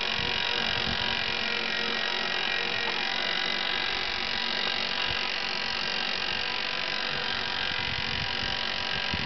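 Small electric winch running steadily with an even whine, winding in its wire cable to haul a cart loaded with rocks.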